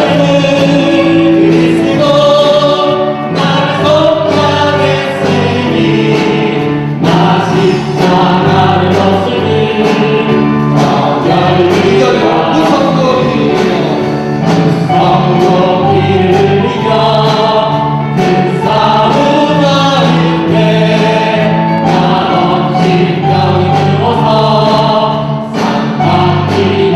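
Church choir singing, holding long chords phrase by phrase.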